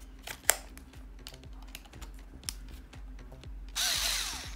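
Sharp plastic clicks and knocks as a bit is fitted into a BLACK+DECKER 4V MAX cordless screwdriver (Roto-Bit, BDCS50C). Near the end the screwdriver's motor runs briefly, under a second.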